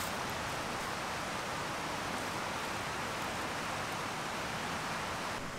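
Steady rushing of a creek's flowing water, an even hiss with no breaks, which thins slightly just before the end.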